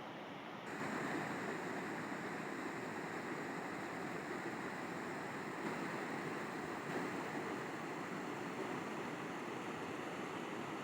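River water flowing, a steady rushing. Just under a second in it turns louder and brighter.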